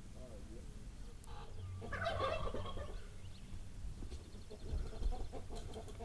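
Farmyard fowl calling, with a burst of calls about two seconds in and fainter calling near the end.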